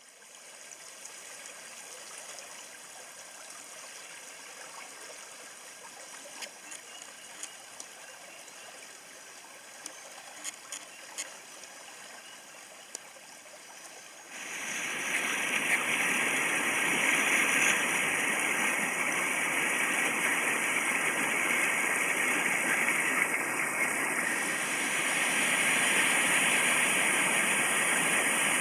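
Creek swollen and muddy after heavy rain: water flowing softly with a few small splashes, then, about halfway through, much louder rushing water over a whitewater rapid.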